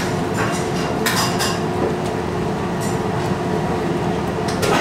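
Restaurant room noise: a steady hum with a few short clicks and clatters of dishes and cutlery.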